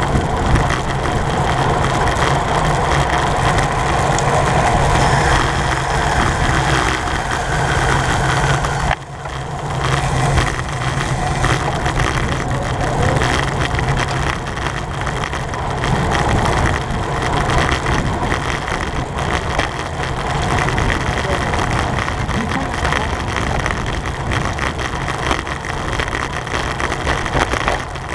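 Wind rushing over the microphone of a camera riding on a racing bicycle at speed, with a steady low road and tyre rumble; the noise drops briefly about nine seconds in.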